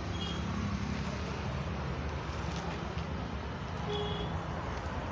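Steady outdoor traffic noise with a low hum. Two faint short high chirps come about a quarter second in and about four seconds in.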